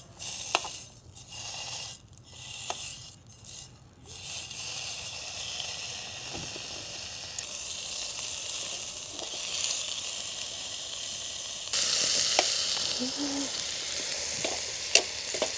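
Food sizzling in a dry pan over a wood campfire, with no oil in the pan. The sizzle comes and goes for the first few seconds, then runs steadily and gets louder about twelve seconds in, with a few sharp clicks.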